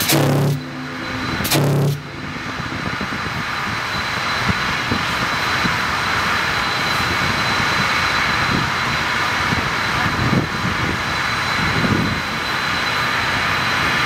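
Two short blasts of the steamer Ste. Claire's whistle, run on compressed air, each about half a second long and a second apart, at the start. A steady rushing noise carries on after them.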